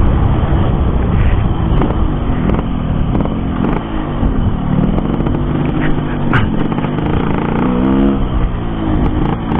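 Yamaha RX-King's single-cylinder two-stroke engine running through a very loud aftermarket racing exhaust while riding. The engine note holds steady, then dips and rises again near the end as the throttle changes.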